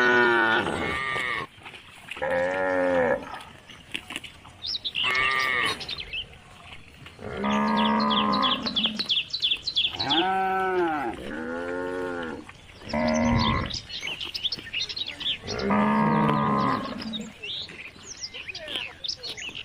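Young calves mooing, about eight short calls in all, each rising and falling in pitch.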